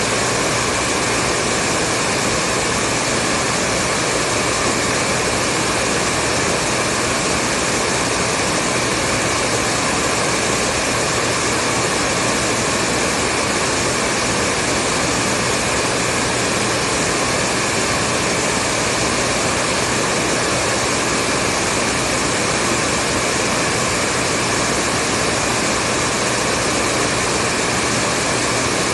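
Hair dryer running continuously at a steady speed: an unbroken fan whoosh with a faint motor hum, used as white noise.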